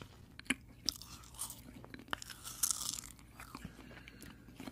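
Close-miked ASMR crunching and crackling: a run of irregular, crisp crunches and clicks, thickening into a denser crackle about two and a half seconds in.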